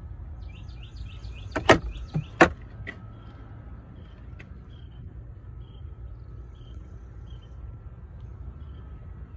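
A few sharp knocks in quick succession about two seconds in, over a steady low rumble, with faint high chirps repeating through the rest.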